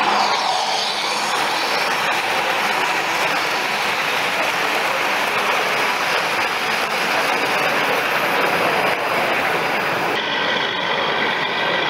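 Model train running past on a curved layout: a steady rolling rumble of its wheels on the rails, mixed with the general noise of an exhibition hall. The sound changes abruptly about ten seconds in.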